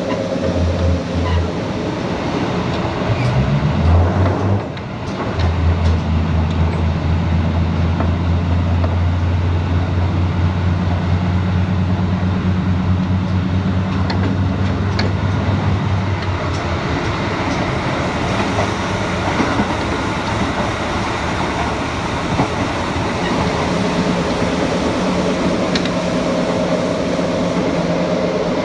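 Running sound of a KiHa 85 series diesel limited express under way, with rolling wheel noise and rail-joint clatter. The diesel engine's low hum rises early on, drops briefly about five seconds in, then holds steady under power before fading as the train coasts, and comes back near the end.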